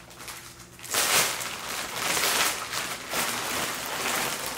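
Clear plastic bag crinkling and rustling loudly as it is opened and a pillow inside is handled, starting about a second in and going on in uneven bursts.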